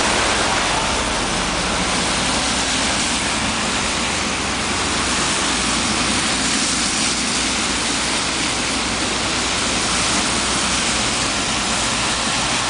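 Steady noise of street traffic on a slushy road, tyres hissing and engines running.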